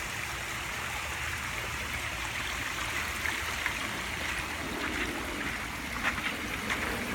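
Water from a pond's stream and waterfall splashing and trickling over rocks in a steady rush, with a few faint small splashes.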